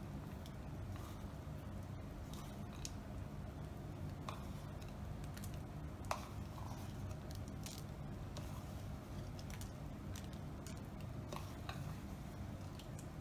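Fingers picking chopped walnuts out of a small plastic tub and sprinkling them, heard as scattered faint clicks and rustles over a steady low room hum.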